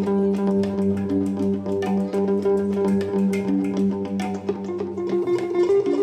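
Live instrumental music from a hang drum and an electric guitar: a steady stream of struck and plucked ringing notes over a held low note.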